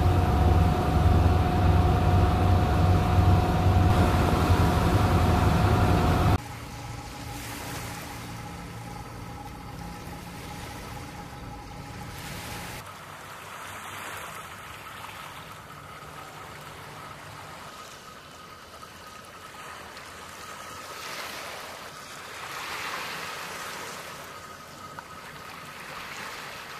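A boat's engine drones low and loud with a steady hum. About six seconds in it cuts abruptly to much quieter open-water ambience of lapping water, and this drops again about thirteen seconds in.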